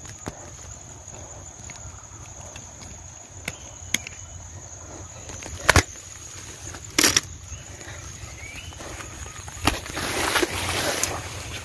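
Footsteps pushing through dense undergrowth: leaves and stems brushing past, with scattered sharp twig snaps and a heavier rustle near the end.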